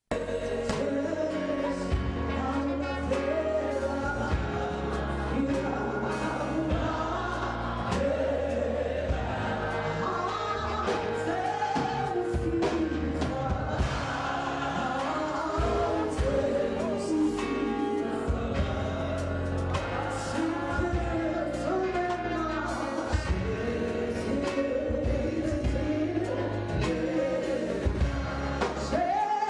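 Gospel choir singing over a band with bass and drums, starting abruptly.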